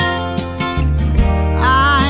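Background song with acoustic guitar and a singing voice.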